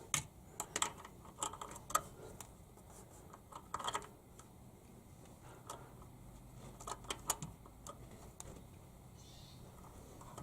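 Pliers clicking and tapping against the metal body of an oil pressure switch as it is turned tight by hand: irregular light clicks in small bunches.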